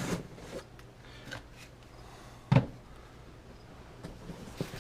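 Faint rustling and handling of cardboard and plastic packaging, with a few light clicks and one sharp knock about two and a half seconds in.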